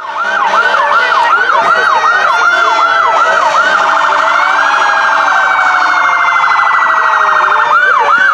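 Several emergency-vehicle electronic sirens sounding at once, the loudest cycling in a fast yelp about three times a second, switching about four seconds in to a much faster warble and back to the yelp near the end. Other slower siren tones overlap underneath.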